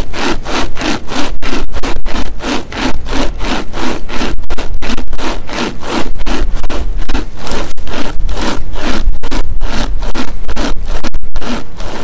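Nordic Pocket Saw, a hand-pulled chain-style saw blade with two handles, rasping back and forth through a log of dry, seasoned hardwood in a steady rhythm of about three strokes a second. It cuts on both the push and the pull.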